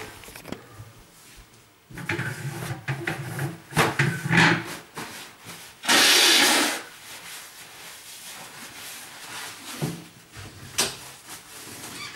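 Household things being handled and moved: irregular rubbing, scraping and knocks, with one short, loud rushing noise about six seconds in.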